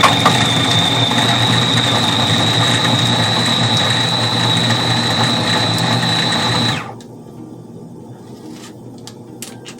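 Electric mini chopper motor running steadily with a constant high whine as it purées catfish fillet, onion, garlic, cilantro and peppers, then cutting off sharply about seven seconds in.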